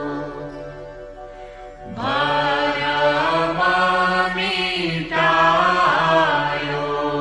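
A devotional guru vandana hymn: a voice singing a chanted, melismatic melody over a steady drone, with a new louder phrase starting about two seconds in.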